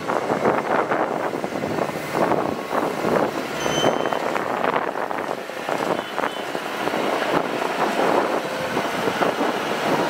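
Kubota DC-105X rice combine harvester running as it drives on its tracks across the paddy, an unpitched mechanical noise with gusty wind on the microphone.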